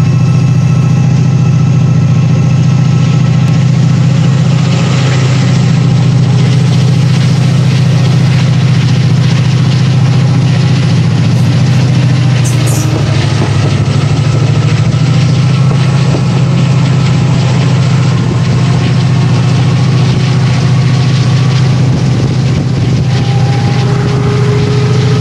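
Class 68 diesel locomotive's Caterpillar V16 engine running with a steady low drone, heard from inside a hauled passenger coach.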